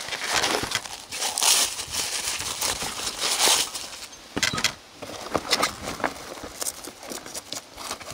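Plastic packing wrap crinkling and rustling in irregular bursts as it is pulled out of a foam shipping box.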